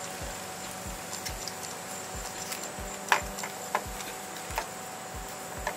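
Hands handling a wire splice and electrical tape: a few sharp clicks and crackles, the loudest about three seconds in, over a soft low thump that repeats about three times a second.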